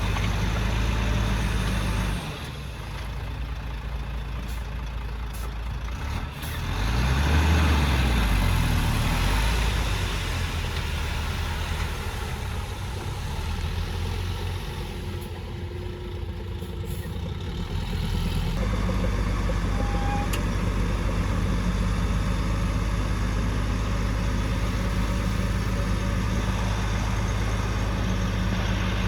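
Heavy construction machine engine running, revving up and settling back about seven seconds in. The sound changes abruptly about two seconds in and again about eighteen seconds in.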